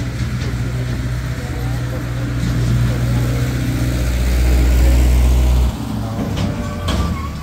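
Tractor engine running hard and growing louder, then dropping off suddenly a little over two-thirds of the way through.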